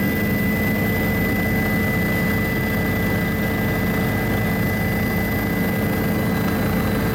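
Helicopter engine and rotor running steadily in flight, heard inside the cabin: a constant loud drone with a steady high whine over it.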